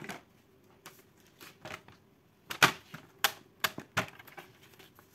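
Sharp clicks and taps of a paper trimmer as 300 g white card is lined up and cut to size, about eight in all, the loudest about two and a half seconds in.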